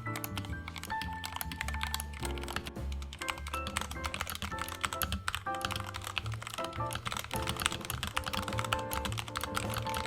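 Continuous typing on a Royal Kludge RK68 mechanical keyboard fitted with stock, unlubricated Gateron Yellow linear switches: a dense, irregular stream of key clacks, over background music.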